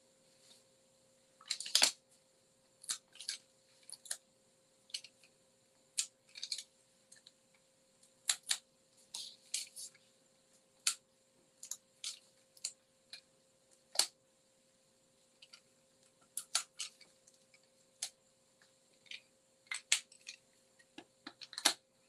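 Light, irregular taps, clicks and rustles of white cardstock being handled and folded while a paper box is assembled, roughly one small sound a second over a faint steady hum.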